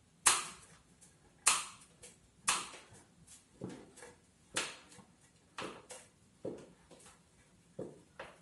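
An IKEA LACK table leg being screwed into the tabletop by hand: a run of sharp clicks and knocks, one or two a second, as the hand grips and turns the leg, louder at first and lighter later.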